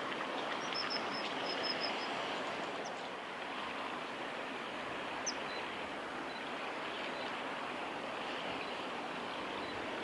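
Steady noise of flowing river water, with a short series of faint, high, thin bird calls about a second in and a few single ones later.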